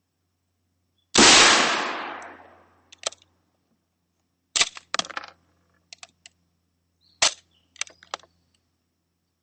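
A single .303 Lee-Enfield No.4 Mk1 rifle shot about a second in, with a long fading echo. It is followed by a series of short metallic clicks and clacks of the bolt being worked.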